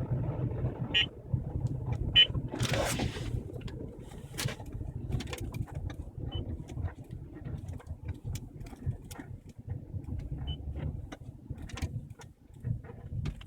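Car running with a steady low rumble, over which come scattered sharp ticks and two short high squeaks in the first few seconds, heard from a car with a noise at the front passenger side.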